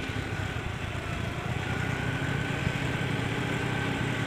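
A vehicle's engine running steadily while travelling along the road, with a low rumble and road noise and a faint steady whine above it.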